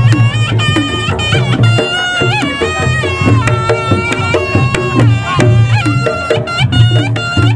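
Reog Ponorogo gamelan music: kendang drums beating a busy pattern under a slompret reed trumpet playing a wavering, bending melody, with a heavy bass.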